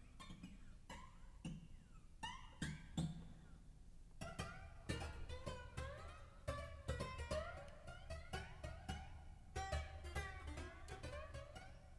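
Quiet background music of plucked string notes, a guitar-like melody in a steady run of picked notes.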